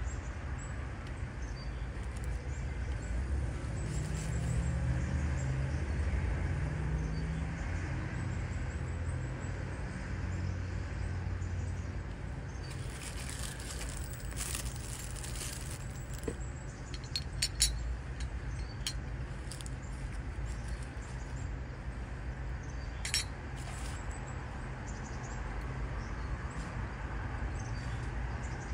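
Candle-set parts being handled: cellophane wrapping crinkles around a glass piece for a few seconds, then a few sharp clinks of glass and metal, the loudest about two-thirds of the way in. A steady low rumble runs underneath.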